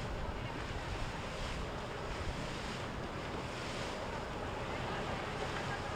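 Steady rush of wind on the microphone mixed with the wash of waves, swelling slightly every second or so.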